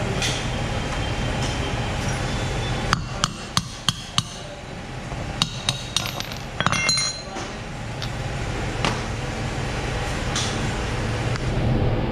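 Hammer blows on metal, about a dozen sharp knocks in two short bursts in the middle, some ringing briefly, over a steady low workshop hum, during removal of a motorcycle's rear sprocket.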